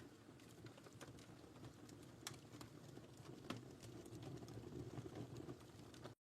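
Wood fire crackling in a fireplace: irregular sharp pops and snaps over a low, steady rumble of the flames. The sound cuts out abruptly near the end.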